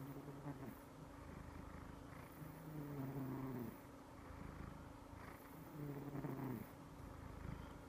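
Domestic cat snoring in its sleep: a low, rattling snore on each breath, coming about every three seconds.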